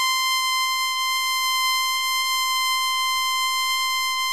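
A steady, high electronic tone with a buzzy edge, held at one unchanging pitch like a long test-tone beep.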